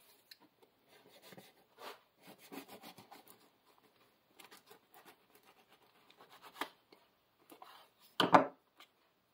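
ZT 0566CF folding knife sawing through a crusty loaf of bread on a wooden cutting board, the crust crackling and scraping with each stroke. Near the end comes a single louder knock on the board.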